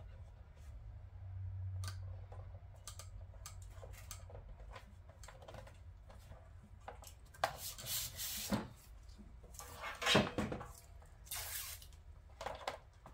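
Handling noises from fitting an adhesive LED light strip: the backing liner being peeled off and the strip pressed and rubbed onto the plastic grille trim. Faint clicks at first, then several short rustling, scraping bursts in the second half.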